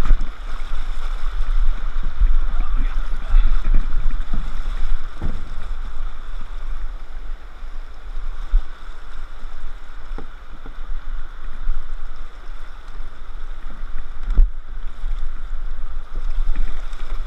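Rushing, churning whitewater of river rapids close to the camera, with a constant low rumble on the microphone and a few short knocks, about three in all.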